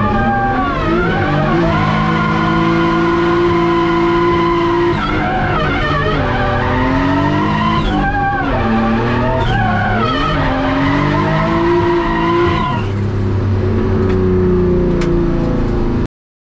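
Turbocharged BMW M50B20 straight-six in a Nissan 180SX drift car, heard from inside: revs rise and fall and hold steady for a few seconds at a time, with the tyres squealing through the drift. The sound cuts off suddenly near the end.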